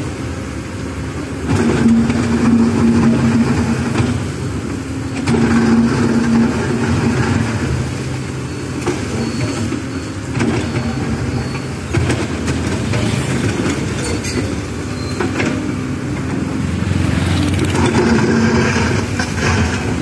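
Komatsu PC130 hydraulic excavator's diesel engine running, swelling louder several times as it takes load working the boom and bucket in a gravel pile, with a few sharp knocks.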